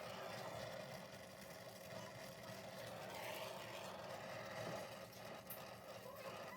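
Brazing torch flame burning steadily on copper refrigerant lines while a new thermostatic expansion valve is brazed in, a continuous even rush of noise.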